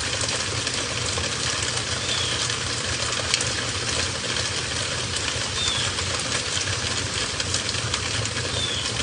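Steady heavy rain falling, an even hiss dotted with the fine ticks of drops over a low rumble. A faint short high chirp repeats about every three seconds.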